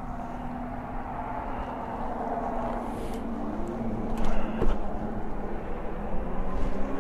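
Riding noise from a Lectric e-bike on the road: wind rumble and road noise, with a steady hum that climbs in pitch a little after three seconds in, and a couple of sharp knocks around four and a half seconds in.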